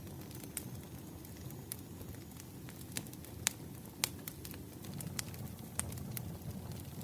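Campfire burning: a steady low noise of the flames with sharp crackles and pops scattered through it, the loudest pops about three and a half and four seconds in.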